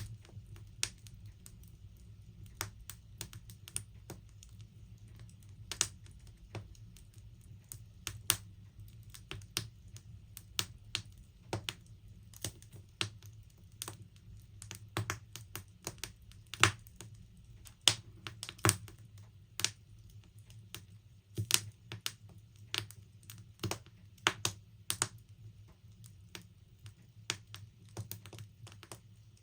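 Wood logs burning in a log burner, crackling with irregular sharp pops and snaps of varying loudness over a low steady hum.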